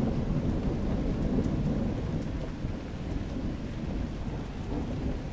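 Low rolling thunder that slowly dies away, with rain and scattered raindrop ticks.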